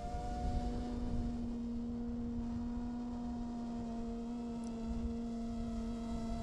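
iFlight Chimera 7 long-range FPV quadcopter's motors and propellers whining at a steady pitch in cruise, over a low wind rumble.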